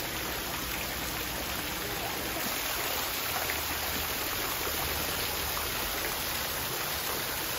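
Water falling in thin streams from a roof edge and splashing into a pond below: a steady patter.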